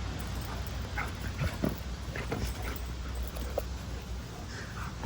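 Dog giving a few short, high whimpers between about one and three and a half seconds in, over a low steady rumble.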